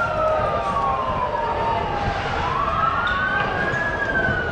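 Vehicle siren wailing, its pitch sliding slowly down and then back up, peaking again near the end.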